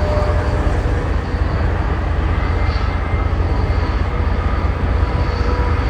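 Boeing 777 freighter's jet engines rumbling steadily, a deep, even roar with faint steady whining tones above it.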